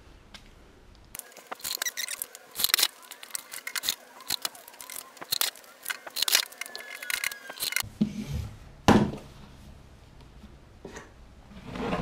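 Quick run of clicks and scrapes as screws are driven with a cordless drill into a corrugated plastic roof sheet, with a faint drill whine near the middle. Then the sheet is handled, with one sharp knock about nine seconds in.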